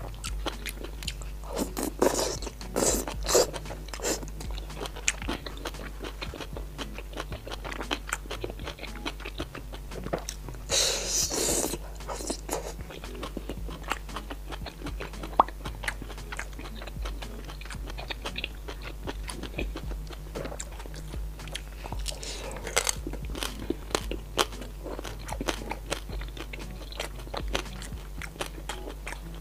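Close-up crunching and chewing of crispy deep-fried skewered food, including pork with crackly skin: a run of sharp crunches, with one louder, longer crunch about eleven seconds in.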